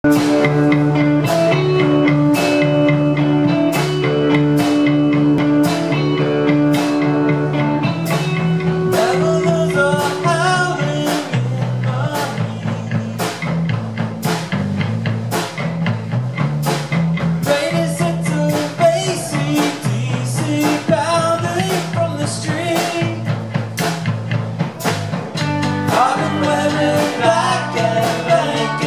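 Live rock band playing: electric guitar, electric bass and drum kit, with a steady beat on the cymbals.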